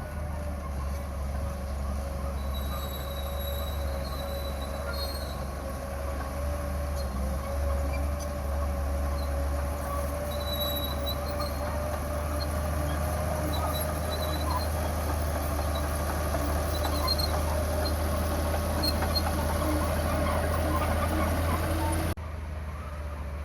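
Komatsu crawler bulldozer's diesel engine running steadily under load, with a steady whine and the clatter and squeal of its steel tracks as it pushes rock. The sound drops suddenly near the end.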